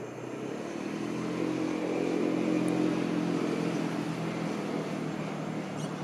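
A motor engine drones at a steady pitch, swelling to its loudest about halfway through and then easing off a little.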